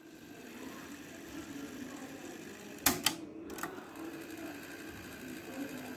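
Trio KX-6000 stereo cassette deck rewinding a tape: a faint, steady mechanical whir from the tape transport, with two sharp clicks close together about halfway through.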